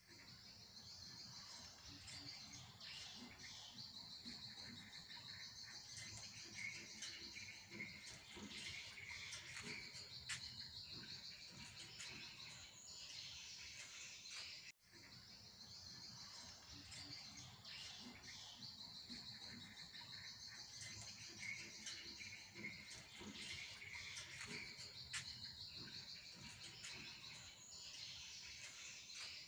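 Faint outdoor ambience: a steady high insect drone with scattered bird chirps. It drops out for an instant about halfway through.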